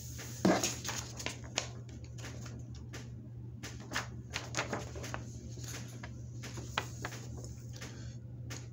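Sheets of printer paper being handled and shuffled close to a phone's microphone: scattered rustles and clicks, over a steady low hum.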